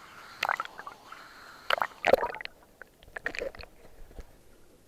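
Water splashing and sloshing in a few irregular bursts, the loudest about two seconds in.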